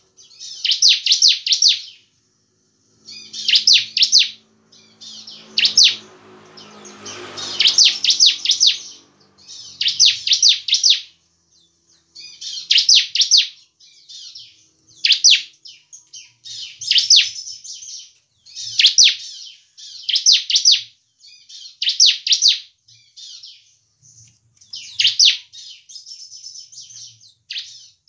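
Caged bar-winged prinia (ciblek) singing: short phrases of rapid, sharp, high notes, each about a second long, repeated roughly every two seconds.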